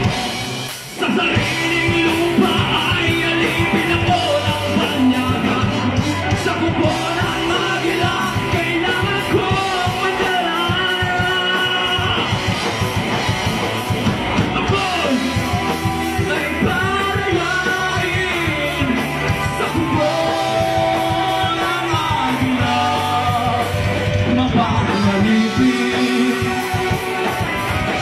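Live rock band playing loud: electric guitars, bass guitar and drum kit, with singing. The music stops briefly about a second in, then kicks back in.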